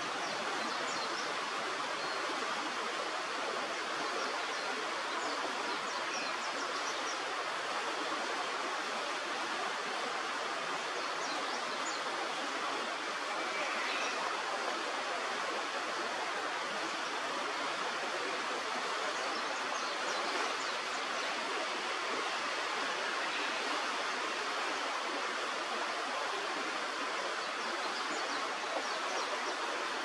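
Steady rushing of a river's flowing water, an even noise with no breaks. A few faint, short high sounds are scattered over it.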